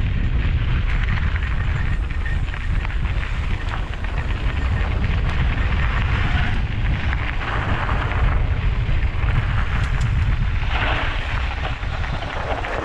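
Wind buffeting the microphone of a mountain bike descending a rocky dirt trail, with the tyres crunching and rattling over gravel and stones, rougher about halfway and again near the end.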